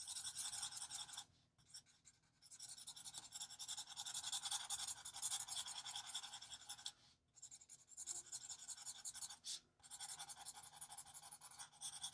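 Alcohol marker nib rubbing quickly back and forth on paper, colouring in an area: faint, scratchy strokes in several runs with short pauses between them.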